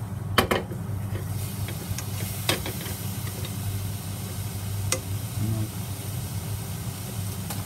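Miso-and-soy-marinated chicken pieces sizzling as they are stir-fried in a stainless steel pan over a gas burner, with a wooden utensil knocking and scraping against the pan a few times.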